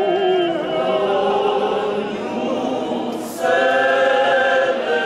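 Church choir singing together in long held notes with a wavering vibrato. The singing breaks off briefly about three seconds in, then the choir comes back louder on a new chord.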